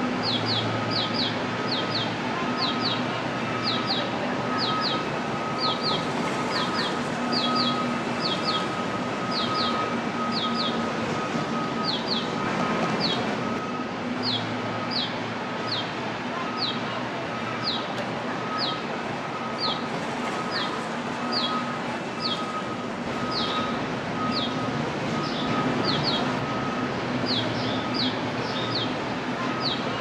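Small birds chirping: short, high, falling chirps in clusters of two or three, repeating about once a second. Under them runs a steady mechanical hum with two held tones.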